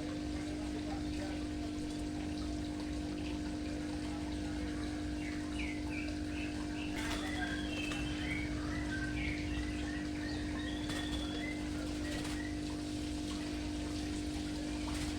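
Small birds chirping in quick, short calls from about five seconds in until near the end, over a steady hum and running water.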